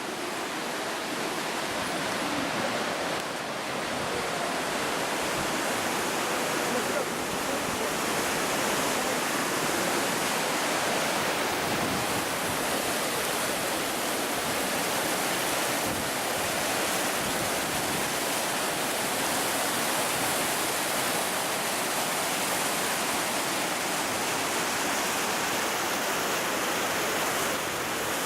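Steady, even rush of water pouring over Fukiware Falls, a wide waterfall on the Katashina River.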